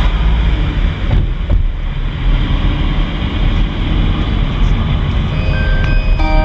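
Car driving, heard from inside the cabin: a steady low rumble of engine and tyre noise. Near the end, guitar music starts.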